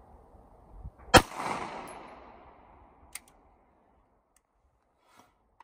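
A single 9mm pistol shot, a Winchester Ranger SXT hollow-point round, about a second in. It rings out in an echo that fades over roughly two seconds.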